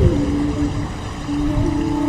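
Ambient drone music: a sustained low tone that slides down at the start and then holds, with a quieter higher tone entering near the end, over a steady hiss and low rumble.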